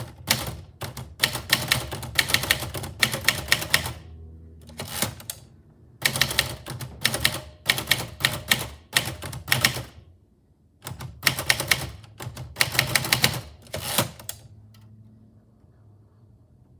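Manual typewriter being typed on in three quick runs of sharp key strikes, separated by short pauses.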